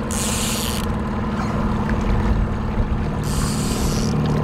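Outboard motor running steadily at trolling speed. Two brief bursts of high hiss come near the start and again about three seconds in.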